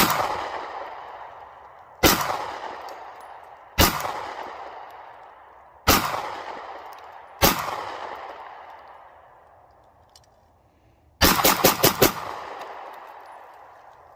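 Glock 43X Slim 9mm pistol firing: five single shots about two seconds apart, then a fast string of about six shots near the end. Each shot is followed by a long, echoing decay.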